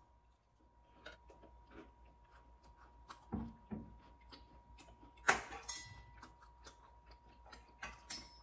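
Close-miked chewing of fried butterfly shrimp: soft wet mouth clicks and smacks, with a few louder knocks and one sharp loud click just past halfway. A faint steady high tone hums underneath.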